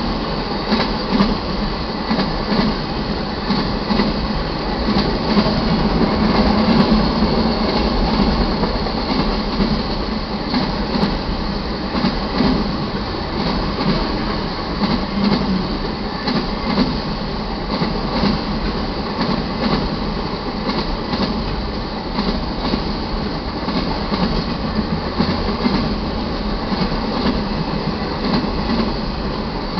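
Freight train of enclosed autorack cars rolling past at speed: a steady loud rumble and rattle of steel wheels on rail, with frequent clicks over the rail joints and a faint steady squeal underneath.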